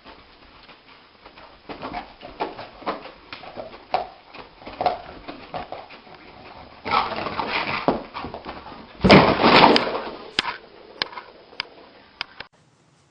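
A dog dreaming in its sleep, giving a run of short whimpers and muffled yips, with louder noisy bursts about seven and nine seconds in. It stops suddenly near the end.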